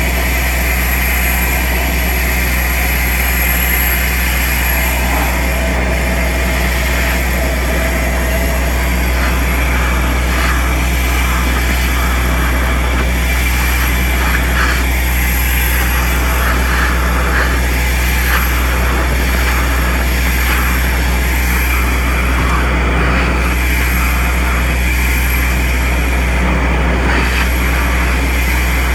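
Compact soil vacuum excavator running steadily with a loud low hum, air rushing into the rigid suction pipe as loose soil is sucked out of a hole around tree roots. Short irregular crackles of soil and grit going up the pipe come through in the middle stretch.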